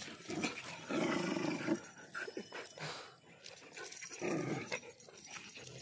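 A German Shepherd and a spitz-type dog growling at each other as they play-fight, a long growl about a second in and a shorter one about four seconds in. It is play growling, not a real fight.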